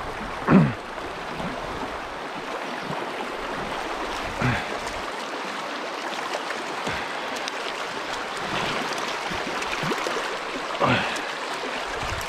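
Fast-flowing river rushing steadily over shallow rapids, with three brief louder swooshes, the first about half a second in being the loudest.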